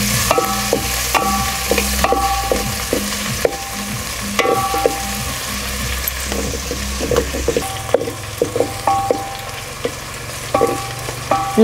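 Crushed ginger and garlic sizzling in hot oil in an aluminium pot, stirred with a wooden spatula that scrapes and knocks against the pot in short strokes. The paste is being sautéed to cook off its raw taste.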